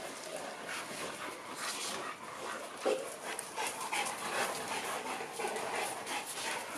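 A pack of large mastiff dogs, excited for treats, panting and whining around the handler, with scattered short scuffs and clicks and one sharper knock about three seconds in.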